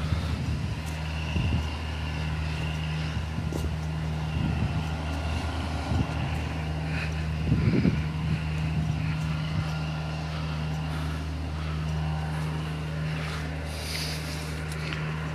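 Car engine running steadily at low speed with road noise, heard from inside the car, with a few low thumps, the strongest about eight seconds in.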